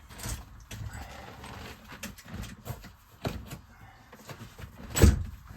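Knocks and clunks of a folding bunk frame being handled and fitted into place, with one loud knock about five seconds in.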